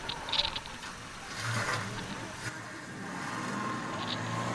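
A vehicle driving, its engine hum and road noise building. There is a brief rattle about half a second in.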